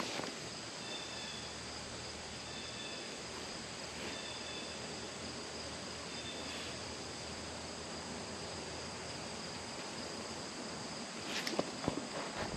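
Steady high chirring of insects, with a few short, higher chirps in the first half. A few clicks and rustles come in near the end.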